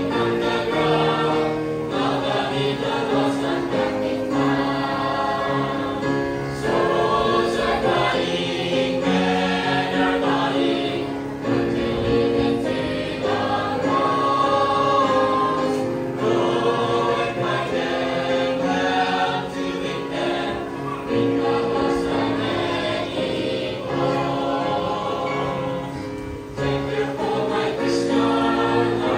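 Mixed church choir of women and men singing a hymn together, several voice parts at once, steadily throughout.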